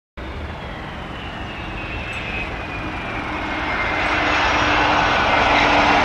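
Airbus A300 freighter's twin jet engines at takeoff thrust as it rotates off the runway, growing steadily louder as it comes closer. High whining tones slide down in pitch over the roar.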